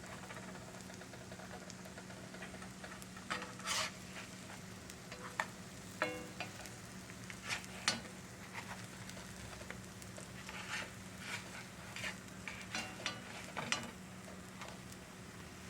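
Potato pancakes sizzling in oil and butter in a skillet, with a spatula scraping and tapping against the pan in scattered strokes, busiest a few seconds in and again in a run of taps near the end.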